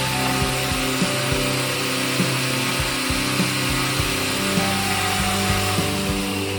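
A power tool running and cutting, a steady high hiss that thins out after about four seconds, over background music with a regular beat.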